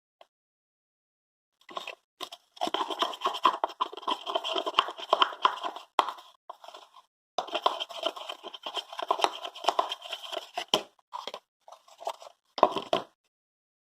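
Stirring a glue slime base with a utensil, scraping against the sides of a container, in two long spells of quick, uneven scraping followed by a few short strokes.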